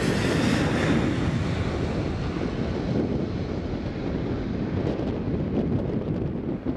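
Twin CFM56 jet engines of a Boeing 737-800 running on the runway, their sound fading as the airliner moves away. Wind buffets the microphone throughout.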